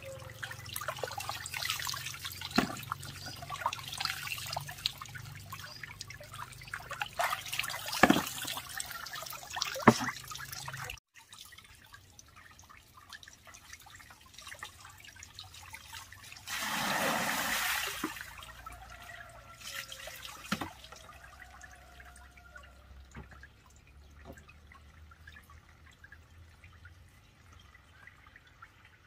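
Sweet potatoes being washed by hand in a plastic basin of water: splashing and sloshing, with sharp knocks as the tubers hit the basin. Partway through it turns quieter, broken by one louder rush of water lasting about a second and a half.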